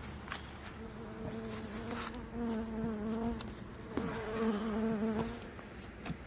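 Honeybees from the open hive buzzing close by, a steady hum that swells and fades in two passes, the second starting about four seconds in.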